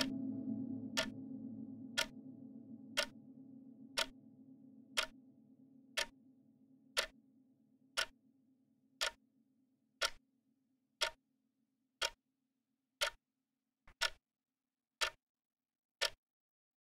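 Clock ticking steadily, one sharp tick a second, over a low held tone that fades away during the first ten seconds or so.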